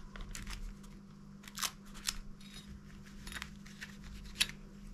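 A handful of short crackles and clicks, spaced about a second apart, as heat-resistant tape and sublimation paper are peeled off and handled on a freshly pressed metal bookmark. A faint steady hum runs underneath.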